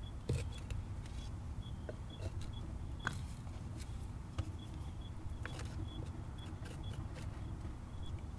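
A wooden stick stirring and knocking in a small clay pot, a scatter of light clicks and scrapes, over a steady low rumble. A short high chirp repeats about three times a second throughout.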